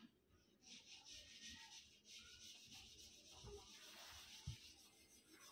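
Faint rubbing and scratching of a marking tool drawn across blouse fabric, starting just under a second in and lasting about four seconds, with a soft knock near the end.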